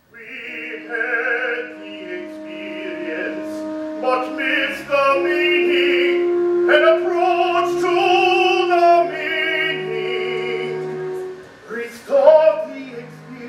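Musical-theatre singing with accompaniment: a voice holds long notes with vibrato over sustained backing tones.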